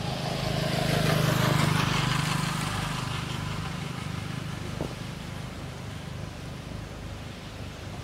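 A motor vehicle passing by on a road, its engine and tyre noise swelling to a peak about a second and a half in and then fading away.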